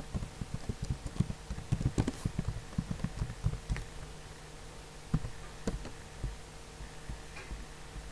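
Computer keyboard typing: a quick, uneven run of key taps for about four seconds, then a few separate taps, over a low steady hum.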